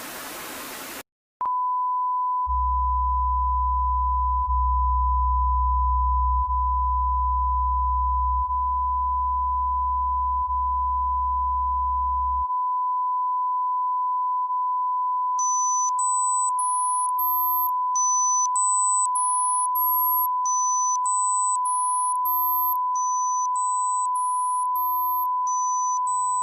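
Electronic audio test signals: a hiss of noise that cuts off about a second in, then a steady pure test tone held throughout. A deep low tone joins it in five two-second steps and stops about halfway, and later very high short beeps climb in pitch in repeating runs of five.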